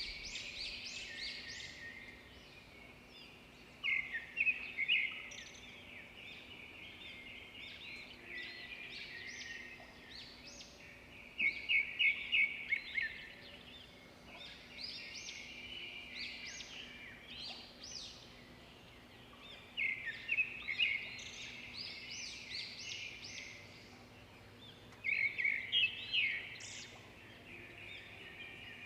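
Small birds chirping and twittering continuously, with louder bursts of quick, rapid chirps every several seconds.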